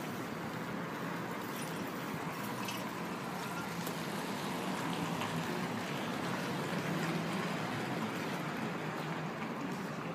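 Steady outdoor background noise: an even rushing hiss over a low hum, with a few faint clicks.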